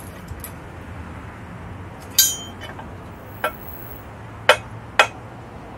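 Four sharp metallic clinks a second or so apart, of a tool and bolt hardware knocking against metal while a crash bar mounting bolt is worked in by hand, over a steady low hum.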